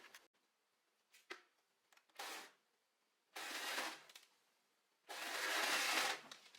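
Sewing machine stitching a seam in three short runs, the last the longest and loudest.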